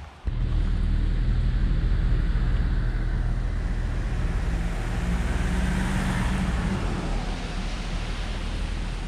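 Road vehicle noise: a low steady rumble that starts abruptly, with a tyre-and-engine hiss that swells about six seconds in and then fades as a car goes by.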